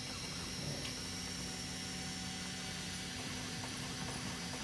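M3D 3D printer printing: its stepper motors hum in steady tones that shift and drop out as the print head changes moves, over an even hiss.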